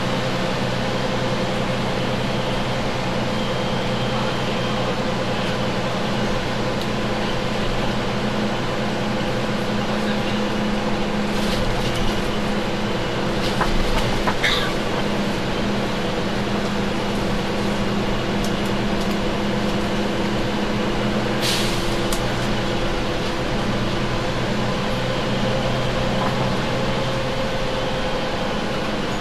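Diesel engine of a three-axle double-decker bus idling steadily, heard on board, with a few brief clicks and rattles around the middle.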